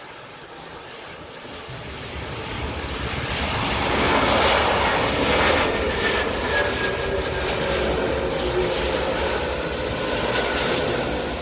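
Jet airliner passing close by on its approach or landing, the engine noise swelling to a peak about four seconds in and then holding loud, with a faint falling whine.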